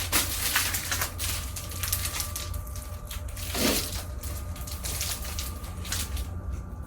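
Irregular crinkling and rustling of packing material being handled, with a stronger scrape a little over halfway through, over a steady low rumble.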